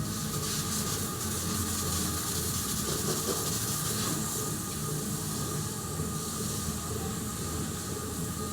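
Water spraying from a hose washing down a milking parlour, a steady hiss, over the steady hum of running dairy machinery.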